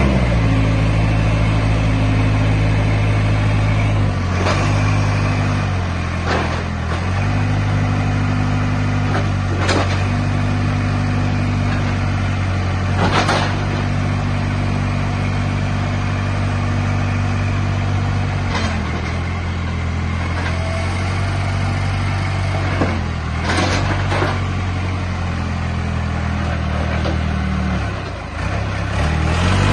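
Diesel engine of a JCB 3CX Project 8 backhoe loader running, its engine speed shifting up and down a few times. Several sharp knocks or clunks are heard over it.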